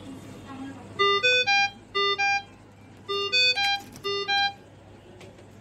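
GE CARESCAPE R860 ventilator sounding its high-priority alarm: short electronic beeps with rising pitch, a group of three followed by a group of two, the pattern played twice.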